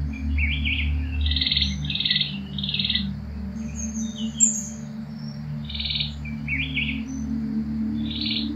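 Birds calling in short, buzzy trilled notes, three in quick succession about a second in and more near the middle and end, with a few thin higher chirps, over a low steady hum.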